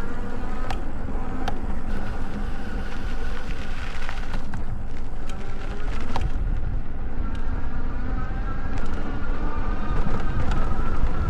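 Electric bike motor whining while riding, its pitch drifting up and down with speed, over a heavy low rumble of wind on the microphone, with a few sharp clicks.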